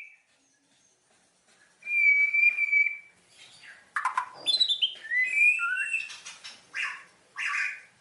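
Birds calling. After a short quiet spell, a single steady whistled note lasts about a second. Then comes a jumble of chirps, rising and falling whistles and a few harsh, scratchy calls.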